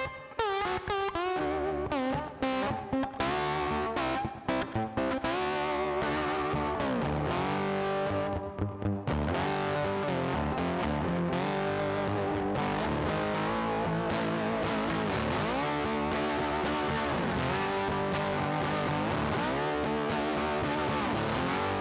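Background music led by a distorted electric guitar, with a few brief breaks early on before it settles into steady playing.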